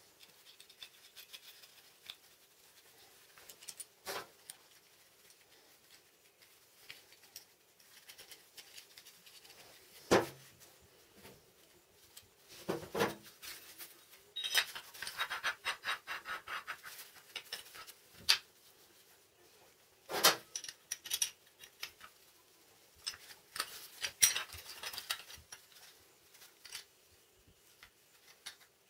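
Small steel hardware (nuts, washers and bolts) clinking and scraping against a steel angle-iron bracket as it is assembled by hand, with a few sharper knocks of metal parts set down and two stretches of quick rattling.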